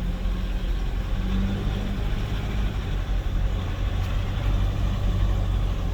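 Nissan pickup truck's engine running steadily as the truck rolls along slowly, a low even drone.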